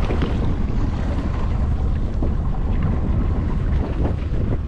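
Steady wind buffeting the microphone out on open, choppy lake water, heard as a continuous low rumble with no distinct events.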